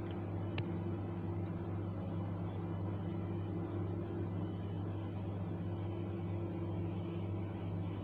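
Steady low machine hum holding a few fixed pitches, with one faint tick about half a second in.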